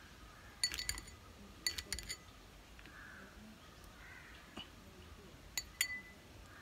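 Metal teaspoon clinking against a small glass bowl while melted ghee is spooned out, in a few short groups of sharp, ringing clinks: about a second in, around two seconds, and again near the end.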